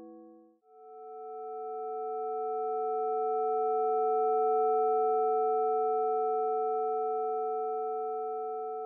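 Synthesized chord of pure sine tones from Sonic Pi. An earlier chord dies away within the first second, then a new chord of about five steady tones swells in slowly, peaks about halfway, and begins to fade. It is a spectral-profile data sonification: the loudness of the tones follows the histogram of the red wines' quality ratings.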